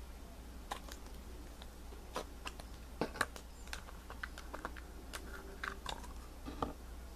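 Irregular light clicks and taps of a plastic Play-Doh tub being handled and opened, a dozen or so spread over several seconds, loudest about three seconds in.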